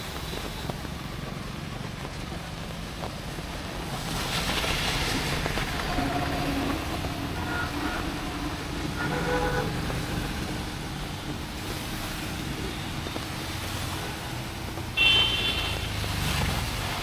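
City street traffic: vehicles passing with engine and tyre noise, swelling louder about a third of the way in, and a short, sharp horn beep near the end, the loudest sound.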